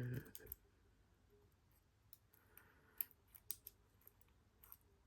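Faint, scattered clicks and ticks of a lock pick and tension wrench working the pin stack inside a Squire LN4 padlock, with a few sharper clicks about three seconds in. A brief murmur of voice at the very start.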